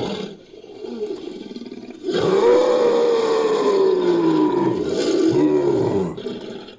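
Creature roar sound effect: a low, quieter growl, then about two seconds in a long loud roar that slowly falls in pitch and breaks up near its end.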